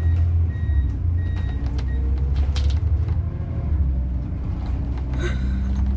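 Bus running along the road, heard from inside the passenger cabin: a steady low rumble of engine and road noise, with a couple of short knocks.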